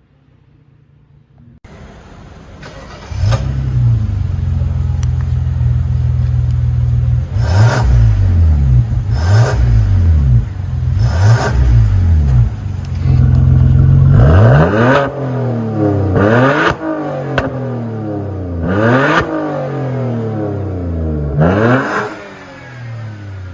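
BMW F10 523i inline-six through an aftermarket valved catback exhaust with a pop-and-bang ECU remap: it comes in about three seconds in and runs at a steady fast idle, then is blipped again and again, each rev rising and falling and ending in a sharp crackle pop on the overrun.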